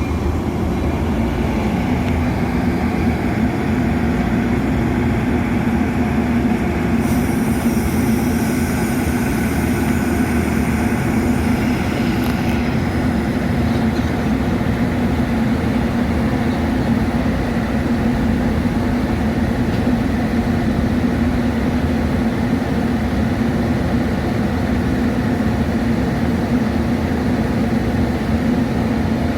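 Metra commuter train running steadily: constant rail and wheel noise with a low hum underneath. About seven seconds in, a high hiss joins for roughly five seconds.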